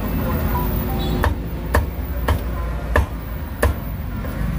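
Meat cleaver chopping through roast duck into a thick wooden chopping block: five sharp chops about half a second apart, starting a little after a second in.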